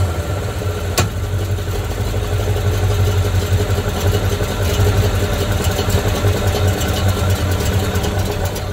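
Old pickup truck's engine running steadily, heard from under the truck at the flywheel, with a sharp click about a second in.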